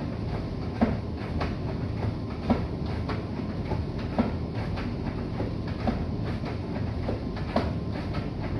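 Bosch i-Dos WGG154A10 front-loading washing machine running: a steady low rumble, broken by a knock every second or so.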